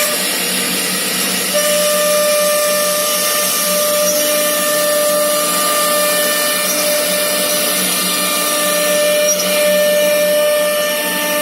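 Woodworking CNC router running, its air-cooled spindle giving a steady high-pitched whine over a steady hiss; the whine comes in about a second and a half in.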